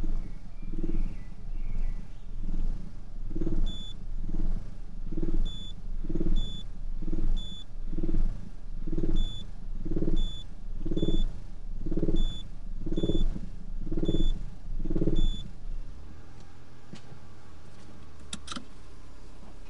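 Citroën Saxo with a faulty exhaust, its sound pulsing in a regular low surge a little more than once a second, with a short high beep on many of the pulses. The pulsing stops about 16 seconds in, leaving a low steady hum, and there is a sharp click near the end.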